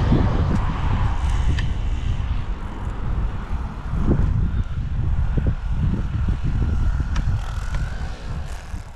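Yu Xiang F11 Apache RC helicopter flying, its rotors heard over a heavy, uneven low rumble that eases off near the end.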